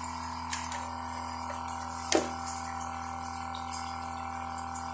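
Resun ACD80 diaphragm aquarium air pump running on DC power: a steady electric hum with a hiss of air. Two light ticks come about half a second and two seconds in.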